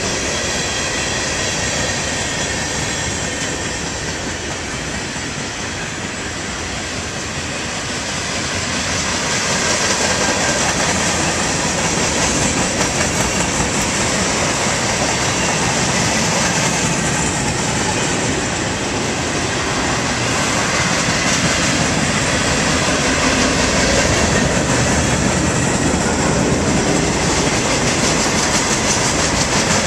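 Freight cars of a mixed freight train rolling past: steel wheels running on the rails. The noise is steady, easing slightly a few seconds in and louder again from about ten seconds on.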